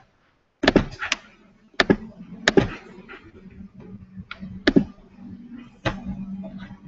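About eight irregular sharp knocks and clicks close to a computer microphone, with a faint low hum between them.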